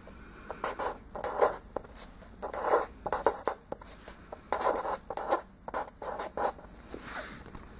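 A pen scratching across paper as someone writes by hand, in short, irregular strokes with brief pauses between them.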